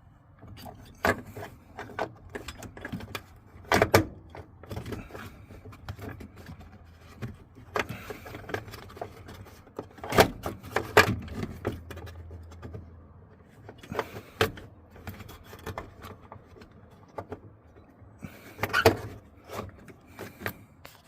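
Irregular clicks, knocks and rattles of parts and tools being handled during work on the van, with a faint low hum at times.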